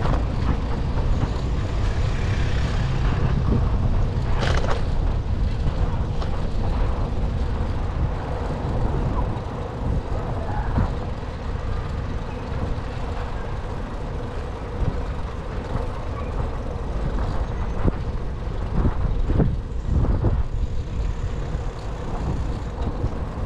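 City street traffic heard from a moving bicycle, with heavy low rumble from wind and road noise on the action camera's microphone. A short hiss comes about four and a half seconds in.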